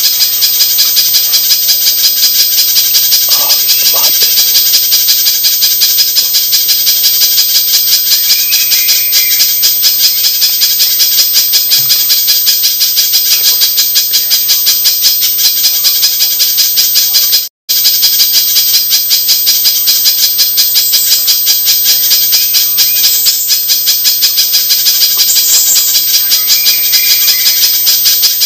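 Spiderhunter (pijantung) call recording played as a bird-trapping lure: a loud, unbroken stream of rapid high-pitched chips, many per second. It cuts out for an instant a little past halfway through.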